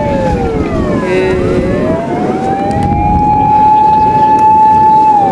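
Fire engine sirens wailing, loud. One wail falls in pitch, climbs slowly back up and holds high, then starts falling again near the end, while at least one more siren glides up and down out of step with it.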